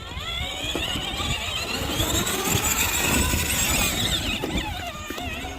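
24-volt electric ride-on toy car driving, its motors and gearboxes giving a high, wavering whine that climbs in pitch at the start, over a low rumble underneath.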